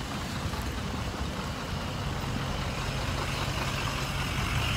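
A large vehicle's engine running close by in street traffic, a low steady hum that grows louder through the second half.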